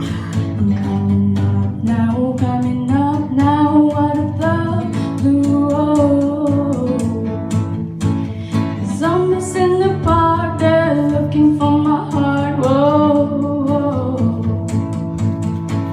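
A girl singing live, accompanied on guitar; her sung phrases bend in pitch over steady strummed chords.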